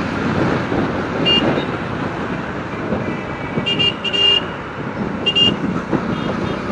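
Dense city road traffic heard while riding through it: a steady rumble of engines and road noise, cut through by short high-pitched vehicle horn beeps, once about a second in, a quick run of three or four around four seconds in, and twice more just after five seconds.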